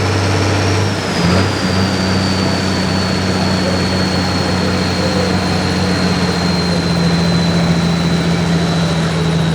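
Turbocharged diesel hot farm tractor engine running hard at high revs under load, pulling the sled. The engine note holds steady apart from a brief dip about a second in. A high turbo whistle sits above it and sinks slowly in pitch.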